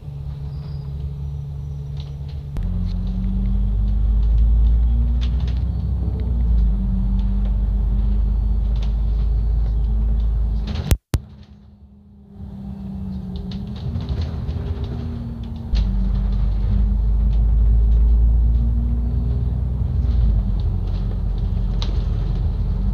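Double-decker bus's diesel engine and drivetrain heard from inside the upper deck: a heavy low rumble whose pitch steps up and sinks again as the bus drives on, with small ticks and rattles over it. About eleven seconds in there is a sharp click and the sound drops out for a moment before the rumble builds back.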